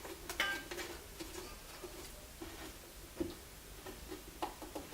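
Faint, irregular taps and knocks of wooden pieces being handled and shifted into line, with a louder knock a little after three seconds.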